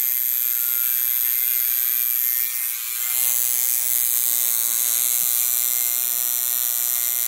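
Electric tattoo machine buzzing steadily as its needle works ink into skin. It dips briefly a little under three seconds in, then picks up again with a deeper hum underneath.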